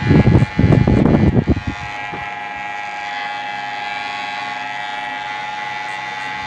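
Electric hair clipper running with a steady high hum while cutting hair. Irregular bursts of low rumble, louder than the hum, fill the first two seconds.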